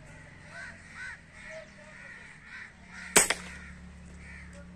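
Crows cawing repeatedly. About three seconds in, one sharp crack of an air rifle shot, the loudest sound, followed at once by a smaller snap.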